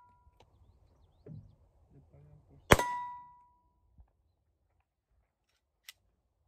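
A single 9 mm handgun shot: a sharp crack followed by a ringing metallic tone that dies away within about half a second. A couple of faint clicks come after it.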